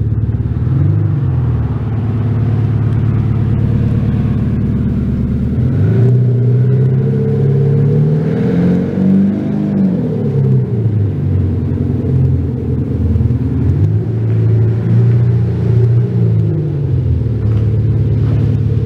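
BMW 530d F10 diesel heard through an aftermarket Maxhaust active sound system with two sound actuators, giving a deep V8-like exhaust note in place of the diesel's own sound. The note rises and falls several times with the throttle as the car drives off and around, reaching its highest pitch about nine seconds in before dropping back.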